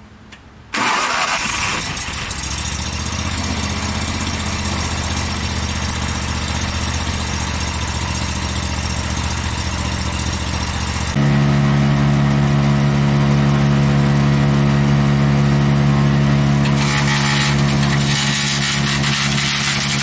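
Barreto 3107C wood chipper's engine starting about a second in and then running steadily. About eleven seconds in it is throttled up to a higher, louder running speed.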